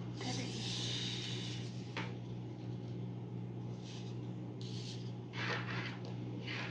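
A deck of tarot cards being shuffled and handled by hand: a long rustling swish at the start, a click about two seconds in, then several shorter swishes, over a steady low hum.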